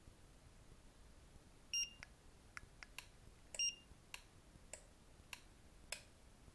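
Eaglemaster E8 car alarm giving two short electronic beeps, a little under two seconds apart. A series of light clicks follows, about one every 0.6 seconds.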